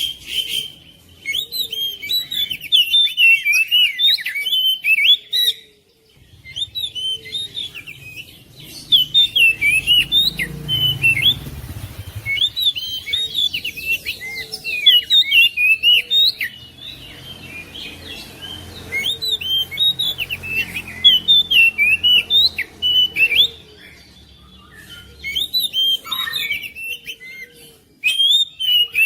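Oriental magpie-robin singing: fast runs of varied whistles and chirps, delivered in bursts of several seconds with short pauses between them. A faint low rumble sits under the song through the middle.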